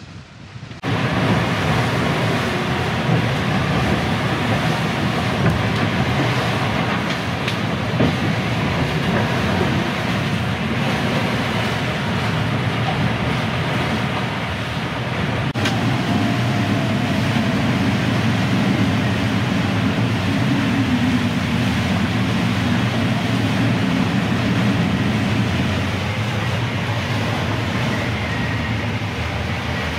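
Steady rush of wind and water aboard a sailing catamaran going to windward in about 20 knots of wind. The low rumble is hull and waves, with wind hiss over it.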